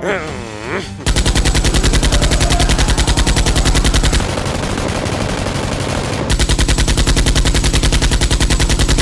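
Rapid automatic gunfire, about a dozen shots a second, running without a break for about eight seconds, its pulses less distinct for a couple of seconds in the middle. It is preceded by a short falling, swooping tone in the first second.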